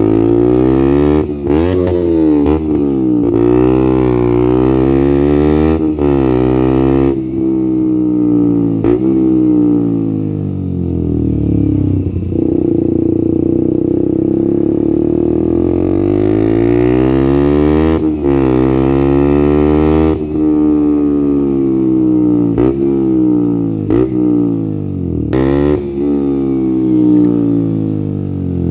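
Straight-piped KTM Duke 125's single-cylinder four-stroke engine, with no catalytic converter or dB-killer, running with its pitch rising and falling again and again, holding steadier in the middle. Several brief sharp clicks cut through it.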